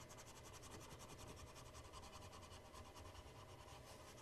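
Near silence: faint room tone with the soft scratching of a colored pencil shading on paper.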